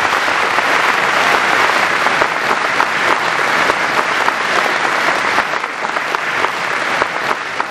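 Audience applauding, a dense patter of many hands clapping, easing off a little near the end.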